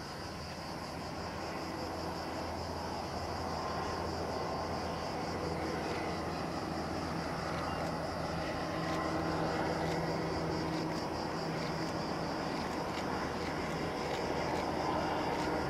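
MLW diesel-electric locomotive with an ALCO 251 engine running as it hauls a container freight train, a steady low drone that grows louder as the train approaches.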